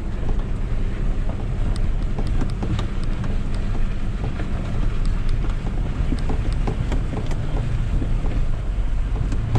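Ram 3500's Cummins diesel and road noise heard inside the cab while towing: a steady low rumble, with many small knocks and rattles throughout.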